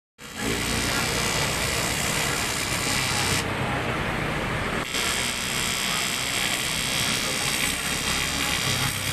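Workshop machine noise: a steady electric buzz and hiss that starts abruptly. The hiss cuts out for about a second and a half a few seconds in while the low hum carries on, then resumes.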